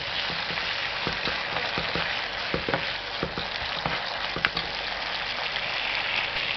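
Onion and capsicum frying in a soy-and-tomato sauce in a pan: a steady sizzle, with irregular clicks and scrapes of a utensil stirring against the pan.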